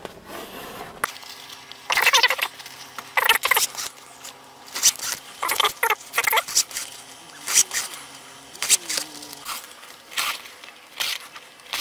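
Hand-stitching a leather pouch edge: thread drawn through the stitching holes and leather being handled, heard as a series of short rustles about once a second.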